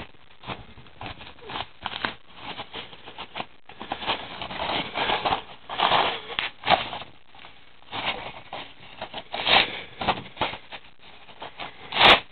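Bubble-wrap packaging crinkling and rustling in irregular spells as hands work a DVD case out of it, with a sharp, loud crackle just before the end.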